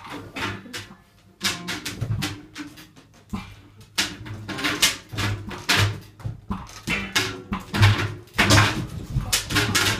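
Free-improvised experimental music: short, irregular bursts of harsh, noisy sound, one or two a second, over low sustained tones.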